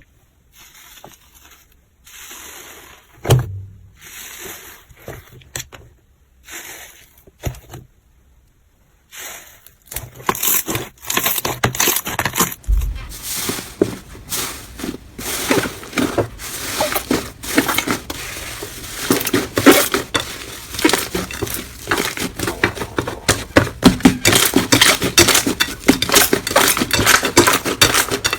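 Slime being squeezed and stretched by hand. At first there are soft, intermittent squishing sounds with pauses. From about ten seconds in comes a dense, continuous run of crackling and popping clicks.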